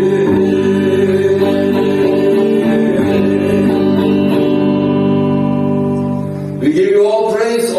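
Congregational worship music: held instrumental chords with singing, ending about six and a half seconds in, when a man's voice starts speaking.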